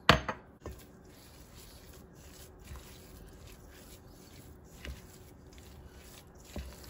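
A sharp knock right at the start. Then a silicone spatula stirs grated cassava and coconut in an enamel bowl: quiet rubbing and scraping with a few light taps.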